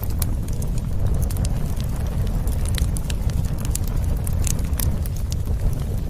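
Campfire burning outdoors: irregular sharp crackles and pops of burning wood, several a second, over a steady low rumble.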